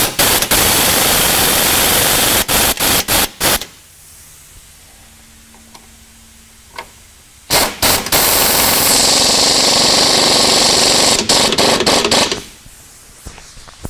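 Handheld pneumatic air tool driving bolts into an aluminium floorboard skid plate: a loud, fast rattling in several short trigger pulls over the first three and a half seconds, a pause, then one long run of about five seconds with a strong hiss of exhaust air in its later part.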